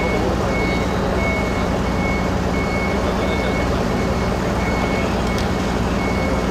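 Heavy-equipment warning beeper sounding a steady series of short, high, even beeps, a little under two a second, with a brief pause midway. Under it is the steady drone of a heavy diesel engine running, from the crane or truck handling the suspended railcar.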